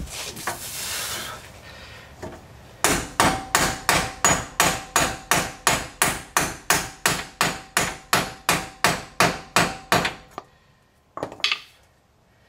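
Rubber mallet striking a 1 5/8-inch socket held over a press-in axle bearing, driving the bearing into a Ford 8.8 rear axle housing: an even run of about twenty light strikes, roughly three a second, with a faint ring under them.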